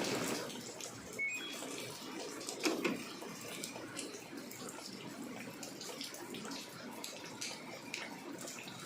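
Water running and splashing inside an LG top-loading washing machine, with scattered small clicks and one louder knock about two and a half seconds in.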